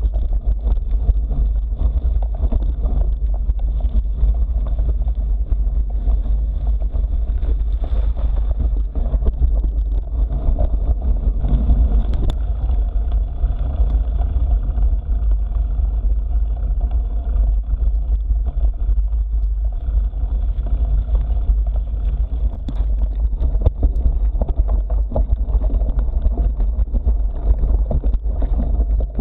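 Steady low rumble from a mountain bike riding a dirt and gravel road, heard through an action camera's microphone: wind buffeting the microphone mixed with tyre noise on the loose surface.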